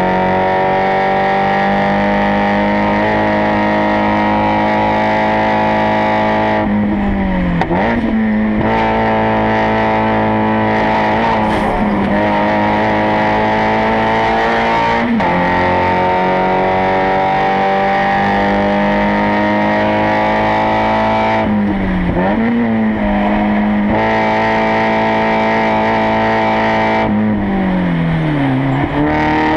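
Spec Miata four-cylinder racing engine running hard at steady high revs. Its pitch dips and snaps back up three times, about 7 seconds in, about 22 seconds in and near the end, as the car brakes and shifts down for corners.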